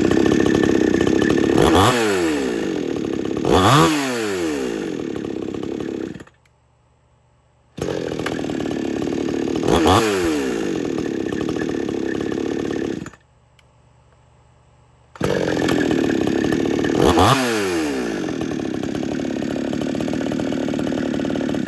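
Extreme Power 6200 62cc two-stroke chainsaw running, with quick throttle blips that send the engine pitch up and back down. It is heard in three stretches of five to six seconds, each starting and stopping abruptly, with short silences between.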